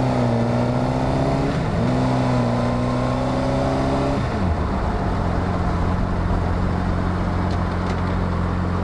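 Motorcycle engine pulling away and accelerating, its pitch rising, then dropping at an upshift about one and a half seconds in, rising again and dropping at a second upshift after about four seconds, then running steadily at cruising speed. Wind rushing over the microphone throughout.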